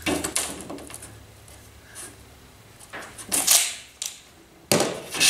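A long metal straightedge being set down and slid across a car hood: a sudden clatter at the start, a scraping swell about three seconds in, and another sharp scrape near the end.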